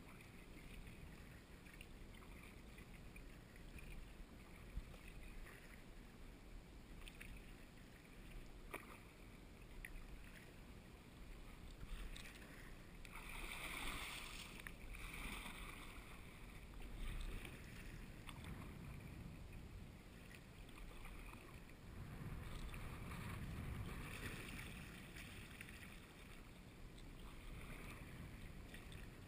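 Kayak paddle strokes dipping into calm sea water, soft splashes and water lapping at the hull, with a louder run of splashing about halfway through.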